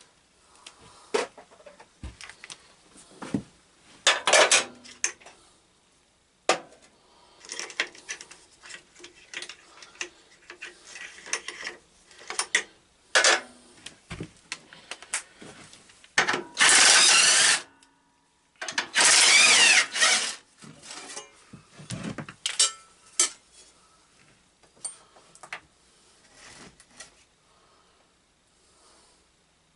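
Wrench and bolt work on a lawn tractor: scattered metal clinks, clicks and clanks of tools and parts, with two loud runs of a power tool, about a second each, around the middle, as guards are unbolted.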